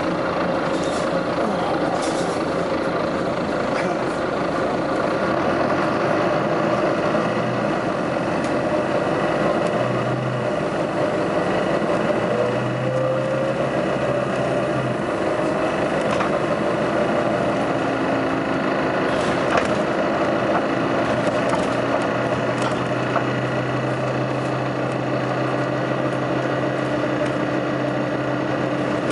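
Steady engine noise with a few faint tones that come and go.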